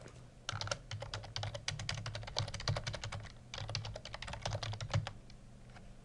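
Typing on a computer keyboard: two quick runs of keystrokes with a short pause between them.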